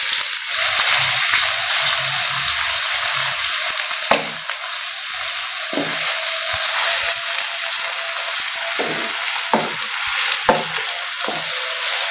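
Grated onions frying in hot ghee in a pan: a steady sizzle, with a few light knocks of a utensil against the pan as they are stirred.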